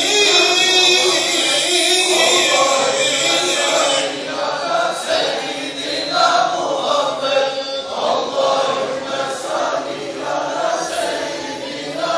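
A large group of men chanting together in unison, a steady religious chant of many overlapping voices.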